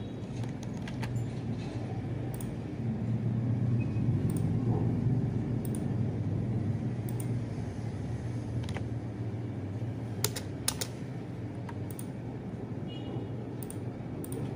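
Scattered light clicks of typing on keys, coming in small clusters, over a steady low hum from a ceiling fan running overhead.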